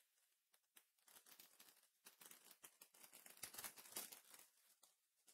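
Foil trading-card booster pack being torn open and crinkled in the hands, faint, a run of crackling that builds from about a second in and is loudest near the four-second mark.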